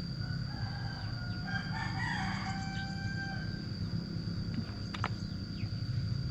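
A rooster crowing once in the background, a stepped call of about three seconds starting about half a second in, over a steady low hum and a thin steady high whine. A single sharp click about five seconds in.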